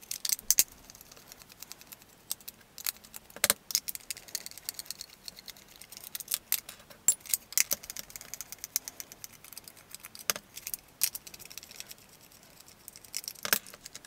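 Scattered clicks, taps and rattles of the hard plastic parts of a vintage Kenner M.A.S.K. Jackhammer toy being handled while a screwdriver undoes the screws on the bottom of its seat section.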